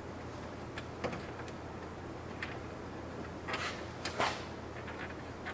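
Hands working a horn and its bracket into place in a car's front end: a few light clicks, then two louder brief scraping, rustling noises, over a steady low hum.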